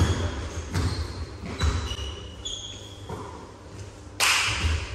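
Basketball bouncing on a gym floor, several thumps under a second apart, with short high sneaker squeaks. The hall echoes, and a loud rushing noise comes about four seconds in.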